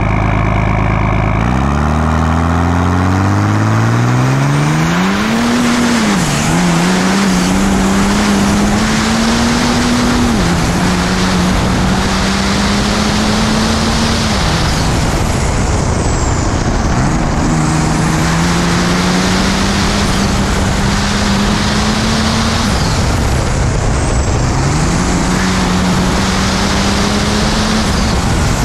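Old Smokey F1 race truck's 6.7-litre Cummins race diesel with compound Garrett turbochargers at full throttle, heard from on board right behind the turbo. It is held steady for a second and a half, then launches, its revs climbing steeply. After that the revs rise and drop again and again through a series of gear changes as the truck accelerates hard.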